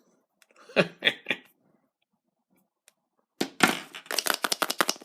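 A surprise egg being unwrapped and cracked open: a short cluster of crackles about a second in, then a fast run of sharp crackling and snapping through the last second and a half.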